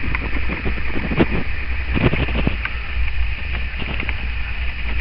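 Handling noise from a hand-held phone camera: a steady low rumble with scattered scuffs and knocks.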